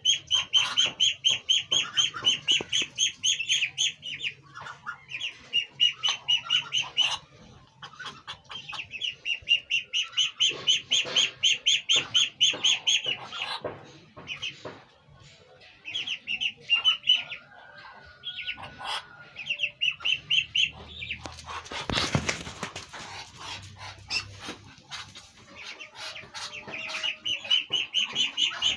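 Muscovy ducklings peeping in fast high runs, about five peeps a second, with short pauses between the runs. About three-quarters of the way through comes a brief burst of rustling noise.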